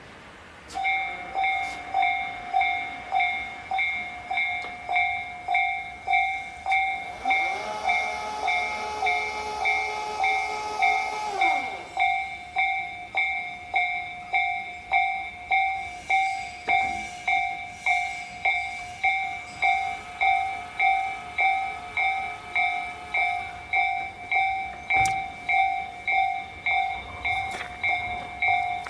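Japanese level-crossing warning bell starts about a second in and rings in a steady repeating ding. Between about 7 and 12 seconds in, an electric train passes, its motor whine rising, holding and then falling. Near the end there are a few sharp clicks from the track.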